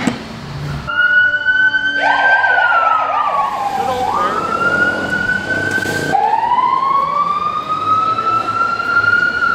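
Fire engine siren wailing, its pitch sweeping slowly up and down, with a second, faster warbling tone underneath for a couple of seconds in the middle.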